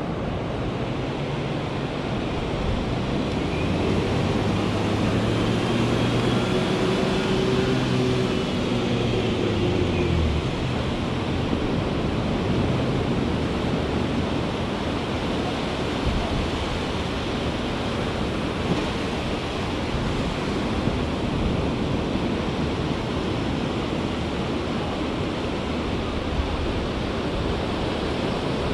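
Surf breaking and washing steadily onto the beach. An engine runs through the first ten seconds or so; its pitch sags and it stops about ten seconds in.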